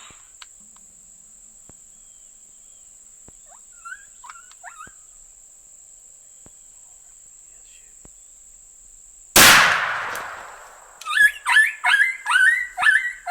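A single rifle shot about nine seconds in, sharp with a ringing tail, followed after a short pause by a quick run of short high calls, about three a second.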